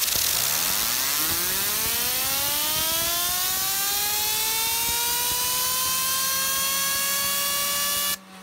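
Compressed air from an air-compressor nozzle blasting a heavy copper Aventador fidget spinner: a loud hiss over a whine that climbs steeply in pitch as the spinner spools up, then levels off. It cuts off abruptly near the end.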